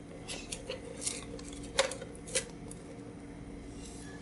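A few light clicks and taps of a plastic toy slinky's coils as it is handled and set on top of a stack of cardboard boxes, spread over the first two and a half seconds.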